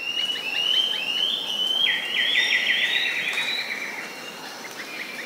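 Rainforest ambience: birds calling in rapid series of high, repeated chirping notes, several overlapping, loudest about a second to three seconds in, over a steady background hiss.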